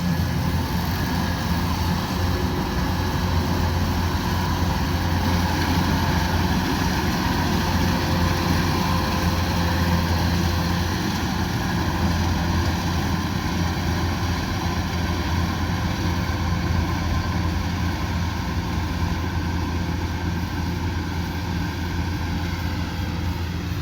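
Rice combine harvester running steadily: a constant low engine drone with machinery whirring above it, easing off slightly toward the end.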